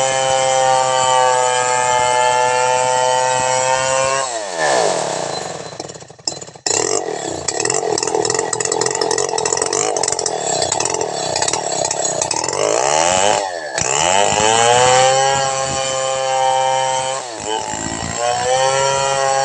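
Petrol chainsaw at full throttle. About four seconds in, its pitch drops sharply as the chain bites into the log. The engine labours through a noisy cut, then climbs back to a high scream as the chain comes free near the end, dipping briefly once more.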